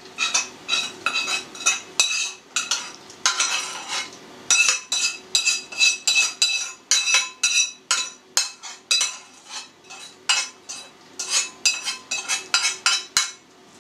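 A metal utensil scraping and tapping against a frying pan as fried onion is scraped out of it into a bowl of minced meat. It makes rapid repeated scrapes and clinks with a metallic ring.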